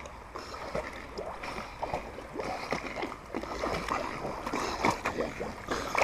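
Water splashing and lapping in an irregular patter of small splashes as a dog swims, paddling through the water.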